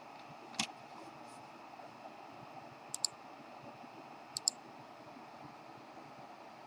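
A few faint clicks of a computer mouse over low room hiss: one about half a second in, then a quick double click about three seconds in and another about four and a half seconds in.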